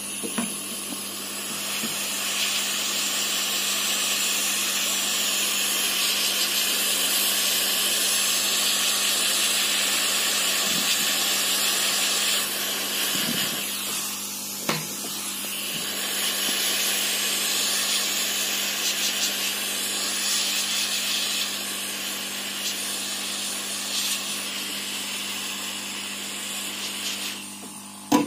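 Handheld hot-air gun blowing steadily: a rush of air over the hum of its fan motor, dipping briefly about halfway through.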